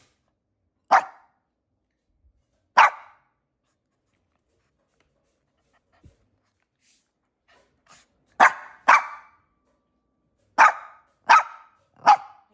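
Small long-haired dog barking in short single barks: two spaced barks about two seconds apart, a pause of several seconds, then five more in quicker succession.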